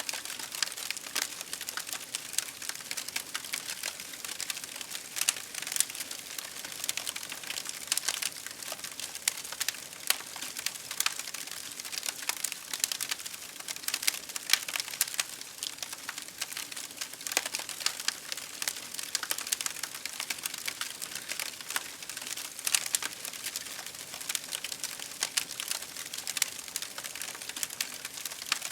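Wood campfire crackling: a dense, irregular stream of small snaps and pops, with now and then a louder pop, over a steady hiss.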